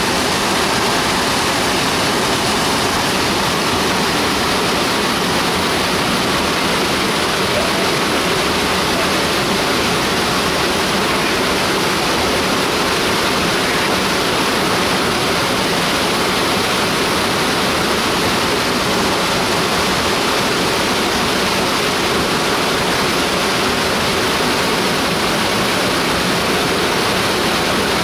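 River water rushing over a small waterfall and rapids, a steady, unbroken noise.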